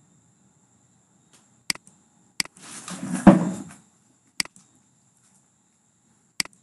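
Computer mouse clicking four times, each a sharp click with a faint second tick just after it. About two and a half seconds in, a louder noisy burst lasts about a second.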